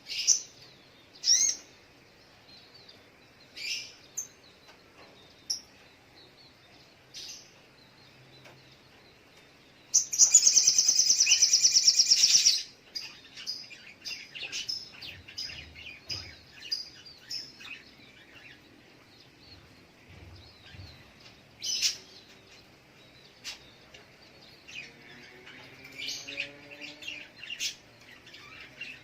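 Brown-throated sunbird (sogok ontong) calling: scattered sharp, high chirps, with a loud, rapid run of chirps lasting about two and a half seconds near the middle.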